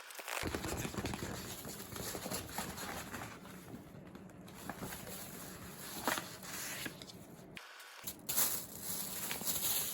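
Hands handling and opening CD packaging: irregular rustling and crinkling of plastic wrap and paper, with scattered light taps and clicks.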